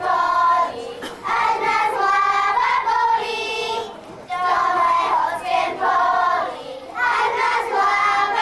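A group of children singing a Slovak folk song together, in sung phrases broken by short pauses for breath.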